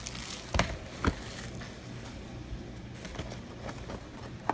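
A few light, separate knocks and taps from boxes and cards being handled on a table, the clearest about half a second and a second in and another near the end, over a low steady hum.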